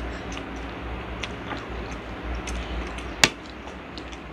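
Forks clicking and tapping against a plate of noodles and sausages while eating, with one sharp clink about three seconds in, over a steady low hum.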